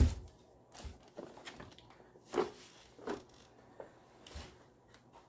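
Plastic baby car seat being handled and turned over: one sharp thump at the start, then a few lighter knocks and rustles of its shell, straps and buckles.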